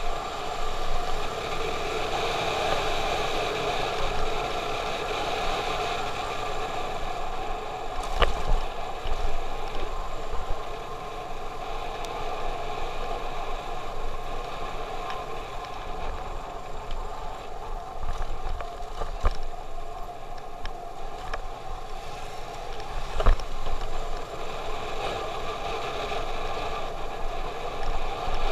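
Motorcycle riding along at a steady pace: the engine's steady running mixed with air rushing past, and a few short low thumps, the loudest about 8 and 23 seconds in.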